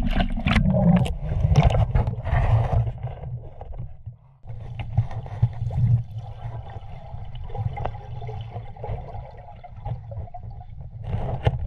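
Water splashing at the surface as a freediver duck-dives. About four seconds in, this gives way to a muffled, low underwater rumble with scattered faint clicks.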